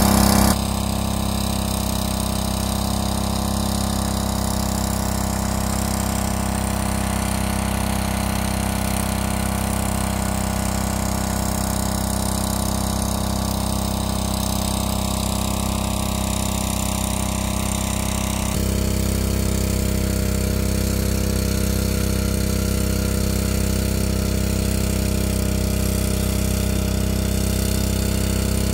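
Small engine-driven water pump running steadily at an even pitch while it draws water out of a pond through a suction hose.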